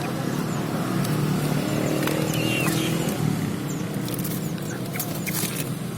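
A steady low engine hum of a running motor vehicle, with a few faint short high bird chirps and light clicks over it.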